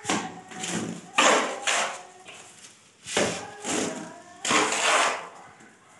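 A mason's steel trowel scraping and scooping wet cement mortar, about seven rough scraping strokes of roughly half a second each, unevenly spaced.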